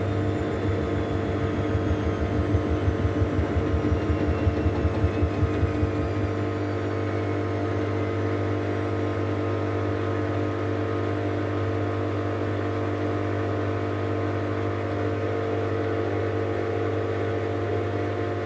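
Beko washing machine in its spin cycle, with a motor whine that falls steadily in pitch. For the first six seconds there is a rhythmic pulsing about two or three times a second, then the machine settles into a steady hum. The owner calls the sound new and weird.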